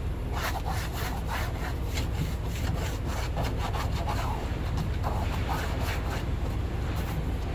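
A wipe wetted with adhesion promoter scrubbed back and forth over the plastic side trim panel of a car's cargo area, cleaning it before adhesive tape goes on. It makes a quick run of rubbing strokes, about three a second.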